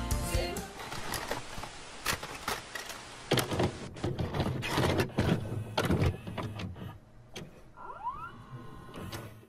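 Felt-tip marker scratching and rubbing across paper in quick, uneven strokes as an area is coloured in, with a short rising squeak about eight seconds in.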